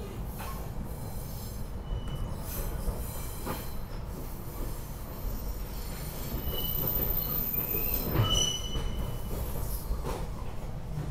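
Inside a moving SEPTA Regional Rail electric train car: a steady low rumble of the wheels on the track, with several knocks from the rails. Brief high wheel squeals come in the second half, the loudest jolt and squeal about eight seconds in.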